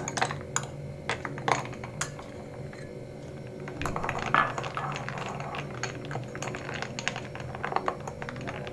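Ice cubes spooned from one ceramic mug into another, then stirred with a metal spoon in a mug of cold coffee: irregular clinks of ice and spoon against the mug.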